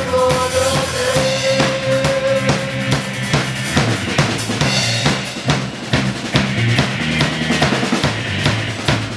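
A live rock band playing a Catholic worship song: a Pearl drum kit with bass drum and snare beating steadily under electric bass and electric guitar. A voice holds one long sung note for about the first three seconds, then the band carries on instrumentally.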